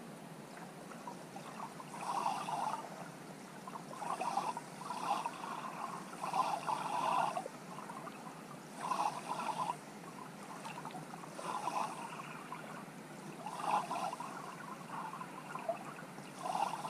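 Muffled water heard through an underwater camera: a steady hiss with a short sloshing surge every two seconds or so.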